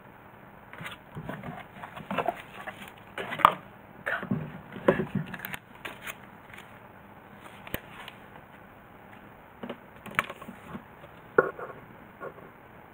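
Cardboard box being handled and a glazed ceramic cat water bowl lifted out and set down on a mat: irregular scrapes, rustles and knocks, loudest a few seconds in, with a few lighter clicks and taps later.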